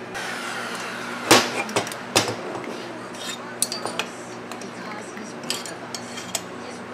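Metal clinks and knocks from fitting the cylinder onto a Husqvarna 254XP chainsaw crankcase and driving its base screws with a hex screwdriver: two louder knocks about one and two seconds in, then lighter scattered ticks of the tool on the screws.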